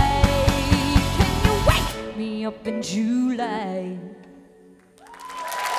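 Live rock band ending a song: a steady drum beat with guitar and keyboards stops about two seconds in, leaving held chords and a last wavering note that die away. Near the end the audience starts applauding and cheering.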